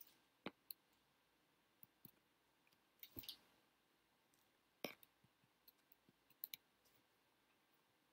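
Near silence: quiet room tone broken by about a dozen faint, short clicks at irregular intervals.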